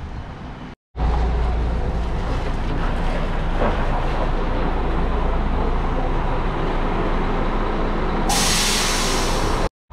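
Coach engine running with a steady low rumble. Near the end a loud hiss of compressed air lasts about a second and a half, typical of the coach's air brakes releasing air.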